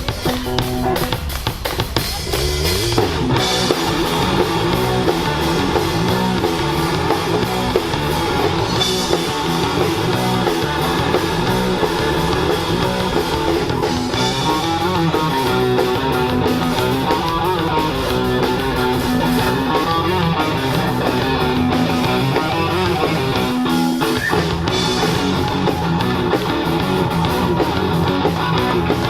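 Live rock band playing: guitars and bass over a drum kit, continuously.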